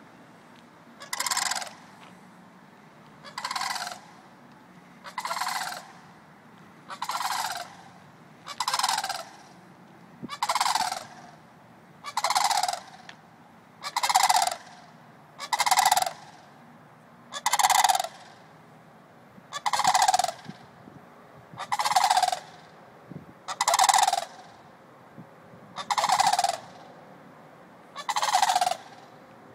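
Two adult sandhill cranes calling, one call about every two seconds, each call falling in pitch.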